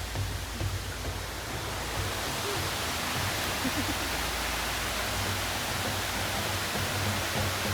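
Rushing water, a steady even hiss that does not let up.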